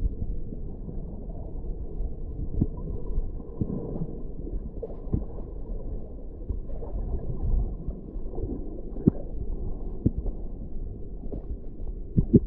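Underwater sound picked up by an action camera in its waterproof housing: a muffled, steady rumble of moving water with scattered sharp clicks and knocks every second or two.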